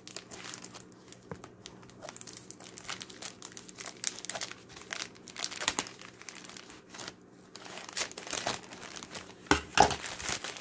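Plastic mailer bag crinkling and crackling as hands pull it open and rummage inside, with louder, sharper crackles near the end.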